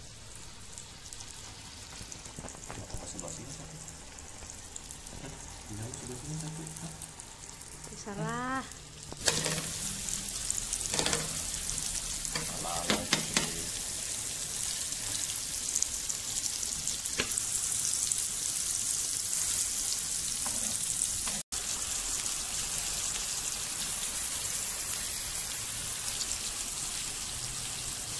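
Beef steak sizzling in oil on a hot electric grill plate. The sizzle gets louder about nine seconds in and stays steady, with a few sharp clicks around the middle.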